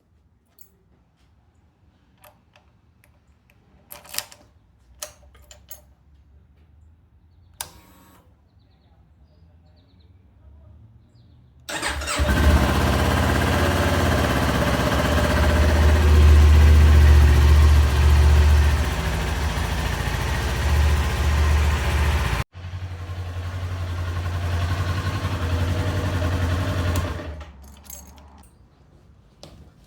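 A 2018 Kawasaki Ninja 400's parallel-twin engine starts up abruptly after a few faint clicks and idles steadily, freshly run after an oil change. It breaks off for an instant, carries on a little quieter, and dies away near the end.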